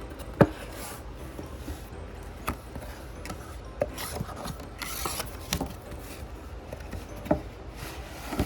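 A packaged cardboard box being opened by hand: rubbing, scraping and rustling of its plastic wrap and card, with scattered sharp clicks and taps. The sharpest tap comes about half a second in.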